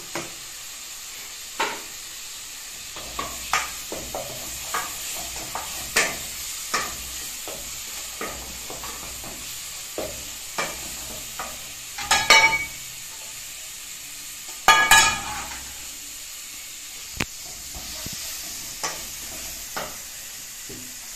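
Wooden spoon stirring and knocking against pots on a gas cooker, with many short sharp clicks and two louder scrapes about 12 and 15 seconds in, over a steady hiss from the lit burners and a pot of gizzards at a rolling boil.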